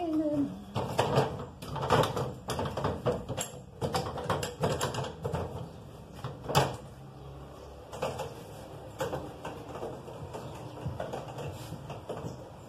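Irregular clatter and clinks of metal gas-stove burner parts being handled and set down, with sharper knocks about a second, two seconds and six and a half seconds in.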